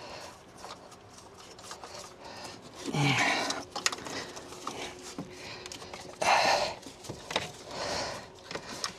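A person's heavy breaths, one with a short grunt, from someone straining at awkward work in a tight space: two louder breathy bursts about three and six seconds in, a weaker one near the end.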